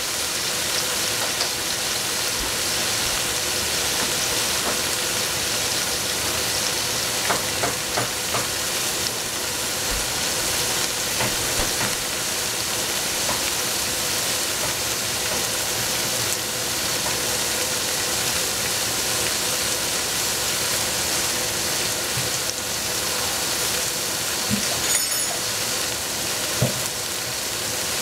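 Cabbage and tofu sizzling steadily as they stir-fry in a pan, with a few scattered knocks as they are stirred.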